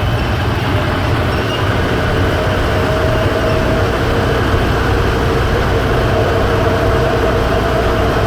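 Airport automated people-mover train running, heard from inside the car: a steady rumble with a constant whine.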